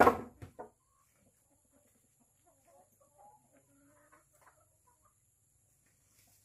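Three quick, sharp knocks right at the start, the first the loudest, then native chickens clucking softly off and on.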